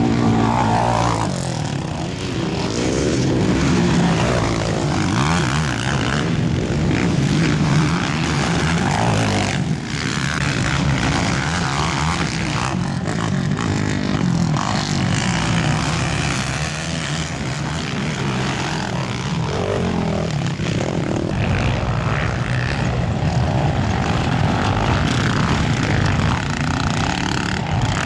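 Racing quad ATV engines revving hard on a motocross track, several at once, pitch rising and falling as they accelerate and shift.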